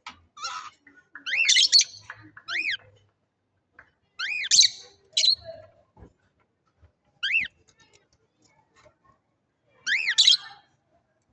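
Budgerigars calling: about six short, high, sharp chirps spread out with pauses between them.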